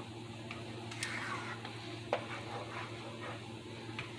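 Wooden spoon stirring a thick cheese sauce in a pan: soft, wet scraping and sloshing, with a couple of light knocks of the spoon against the pan about one and two seconds in. A steady low hum runs underneath.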